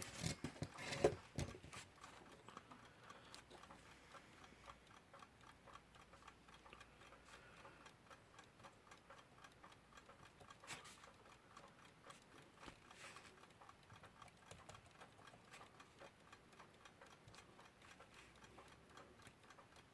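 Westclox Lark alarm clock movement ticking faintly and evenly as its balance wheel runs, freshly oiled. A few light knocks come about a second in and again near the middle.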